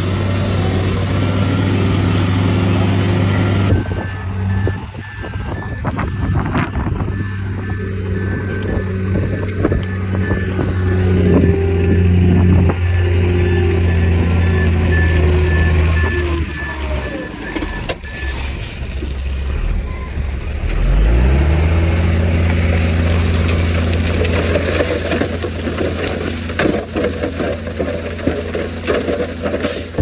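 Heavy diesel earthmoving machinery running, a bulldozer and dump trucks working, with a truck's reversing alarm beeping over it from about four seconds in to about sixteen seconds and again at the very end. About twenty seconds in, an engine revs up.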